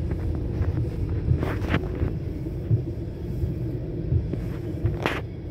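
Freight train of tank cars rolling past a grade crossing, heard from inside a stopped car as a steady low rumble with a few sharp clicks.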